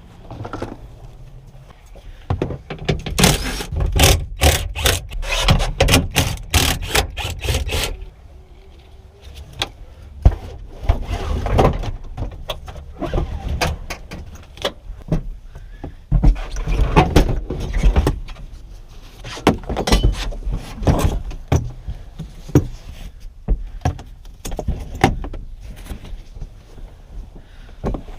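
Hand tools and interior parts being worked inside a car during a teardown: irregular clicks, knocks, metal clinks and scraping, with a fast run of clicking a few seconds in.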